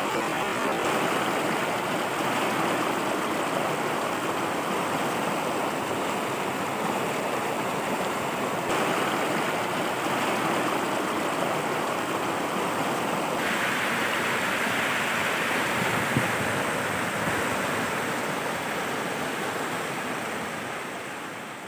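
Muddy floodwater rushing and churning down a rocky seasonal stream bed, a steady loud rush of water that eases off slightly near the end.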